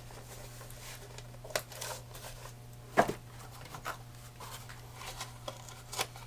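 Small metal machinist's tools being handled and set down: a few sharp clicks and knocks, the loudest about three seconds in, over a steady low hum.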